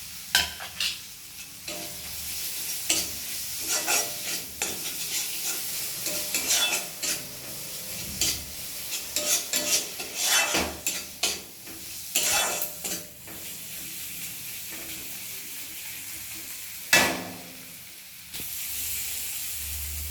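Spice paste frying in oil in a pan, sizzling steadily while being stirred, with many short scraping strokes of the spatula against the pan over the first two-thirds. About three-quarters of the way through there is a single sharp clank, and near the end the sizzle grows louder.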